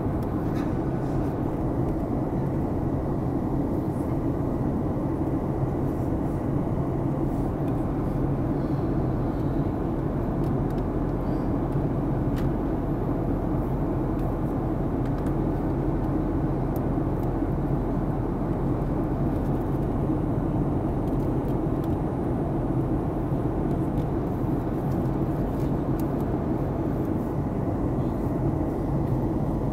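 Steady low drone of a Boeing 737 MAX 8's CFM LEAP-1B engines and airflow in flight, heard inside the cabin from a window seat over the wing.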